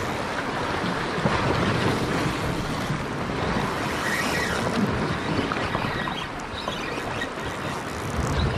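Sea waves washing against a rocky shore, a steady rush of surf, with wind buffeting the microphone.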